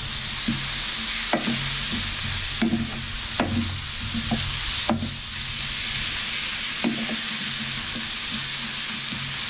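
Chicken pieces, chopped tomatoes and fresh coriander sizzling in a stainless-steel frying pan as a wooden spoon stirs them: a steady frying hiss with irregular knocks and scrapes of the spoon against the pan.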